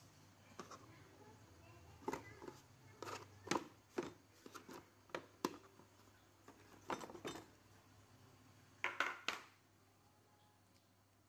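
Hard plastic knocks and clicks as the removable inner tray of a toolbox-style power station case is handled and lifted out: about a dozen short knocks in small groups, the loudest near the end.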